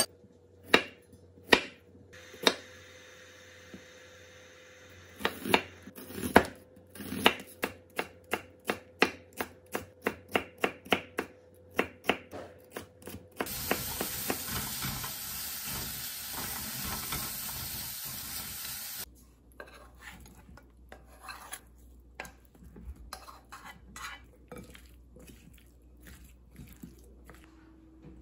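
A chef's knife slicing Korean zucchini on a wooden cutting board: separate chops, then a quicker run of them. About halfway through a steady hiss lasts some five seconds, followed by lighter clicks and taps of a wooden spoon mixing in a glass bowl.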